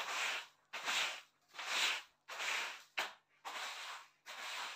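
Broom sweeping a floor in quick, even strokes: a short swish about every 0.7 seconds, seven or so in a row.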